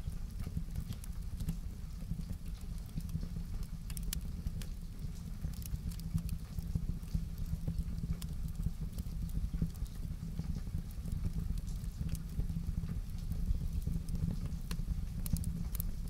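Wood fire crackling in a fireplace: scattered sharp pops and snaps over a steady low rumble.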